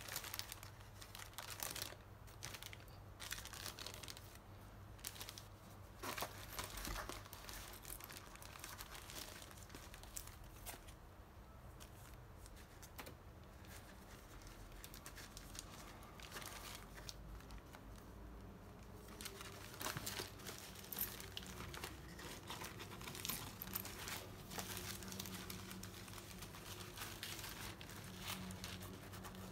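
Plastic bags and cellophane wrapping crinkling and rustling as kit parts and wrapped balsa sheets are handled, in irregular bursts that thin out for several seconds in the middle and pick up again near the end.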